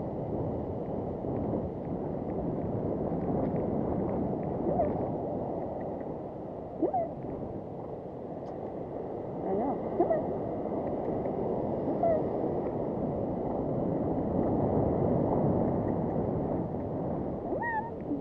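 Steady rushing of ocean surf breaking on the shore, mixed with wind buffeting the camera microphone, with a few brief faint pitched sounds on top.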